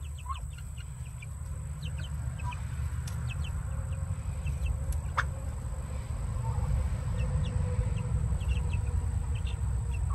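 Half-grown chickens giving short, soft peeps and chirps, scattered all through, over a steady low rumble.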